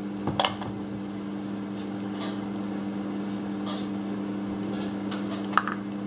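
A steady hum, with a few short clicks and knocks as a compression tester's gauge and hose are handled on the engine. One click comes about half a second in and a sharper one comes near the end.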